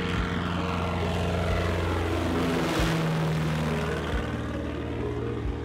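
Single-engine propeller bush plane flying low past just after takeoff: the engine and propeller note builds to its loudest about halfway through, drops in pitch as the plane passes, then fades away.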